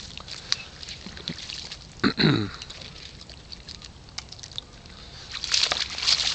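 Leonberger puppies scuffling over sticks among the reeds: a running patter of light crackles and snaps. About two seconds in there is one short vocal sound from a dog that falls in pitch.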